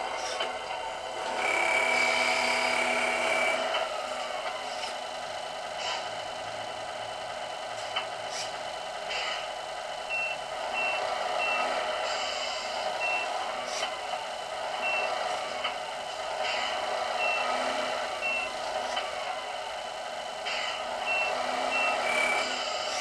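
Semi-truck sound effects: an engine running steadily, a held tone about two seconds in, then groups of short reversing beeps from the middle on, with several sharp hiss-like bursts between them.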